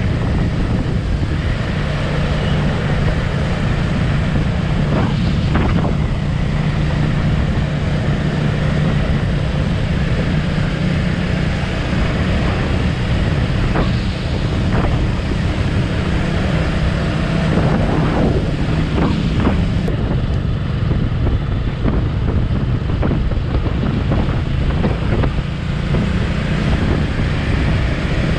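Motorcycle engine running steadily while riding, with heavy wind rushing over the microphone.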